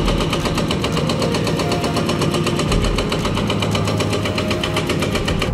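Hydraulic excavator's diesel engine running under load, with a rapid, even clatter of about eight or nine knocks a second.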